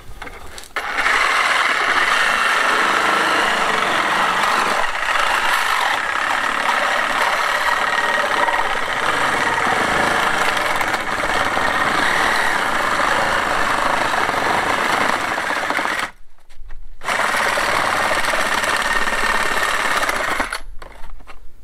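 Cordless reciprocating saw running steadily as it cuts away the plastic edging around a concrete slab. It stops for about a second three quarters of the way through, runs again, then stops shortly before the end.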